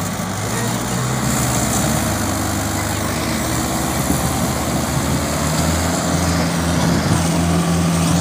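Diesel engines of a Mahindra 585 DI tractor and a JCB 3DX backhoe loader running hard under load as the tractor drags a loaded sugarcane trailer through mud. The engine note rises about five seconds in and holds higher.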